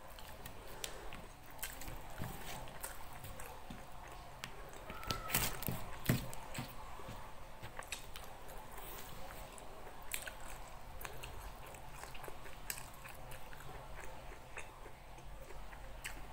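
Close-up chewing and biting of someone eating nasi Padang, with rice and rendang: wet mouth clicks and smacks throughout, and a louder cluster of clicks about five to six seconds in.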